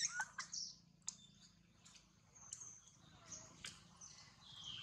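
A macaque gives a short, high-pitched call right at the start, then faint bird chirps and a few light ticks follow.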